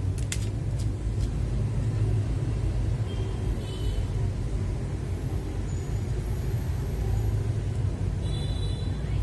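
Steady low background rumble, with a couple of light clicks about a third of a second in.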